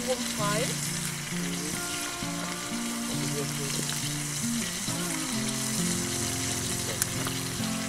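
Food sizzling in a pot or pan over a small camp stove: a steady frying hiss with faint crackles. Background music plays over it, a slow line of held low notes.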